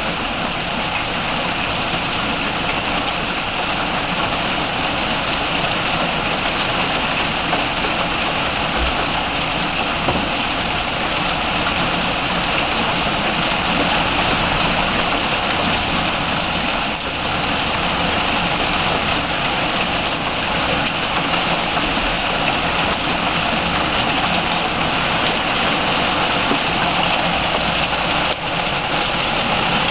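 Heavy rain falling steadily in a downpour, a continuous even hiss of drops on the garden's surfaces.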